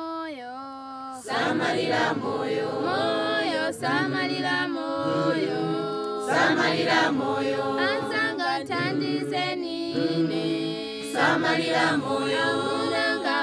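A group of voices singing a chant-like song. A single voice holds and slides a note at first, and the full choir comes in about a second in.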